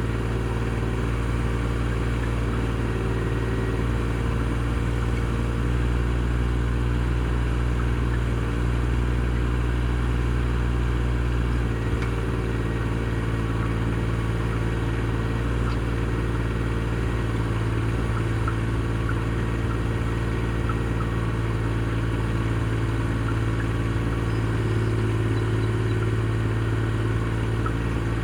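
Chinese Vote mini excavator's engine running steadily, with a change in its low note about twelve seconds in.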